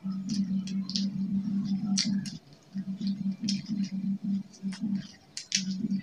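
A person chewing a mouthful of fried food close to the microphone: rhythmic low chewing with crisp crackles and wet mouth clicks, pausing briefly twice.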